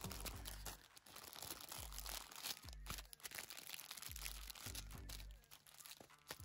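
Faint crinkling, crunching and tearing of plastic packaging being handled and opened, in irregular small crackles.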